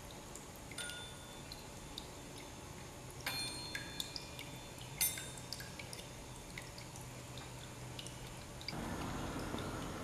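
Sparse, high tinkling chime pings, each ringing out briefly, with louder clusters about three seconds in and again at five seconds; a steady hiss comes in near the end.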